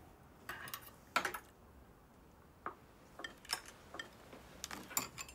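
Tableware at a meal: cutlery clinking against bowls and plates in a string of light, scattered clicks, about eight to ten over a few seconds.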